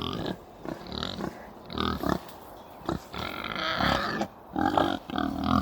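Pigs making short, irregular calls as three male pigs scuffle in a group.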